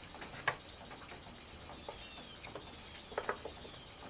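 A few light knocks and clicks, one about half a second in and a quick pair a little past three seconds, likely from cut wood being handled at the miter saw. Behind them runs a steady high chirring like insects.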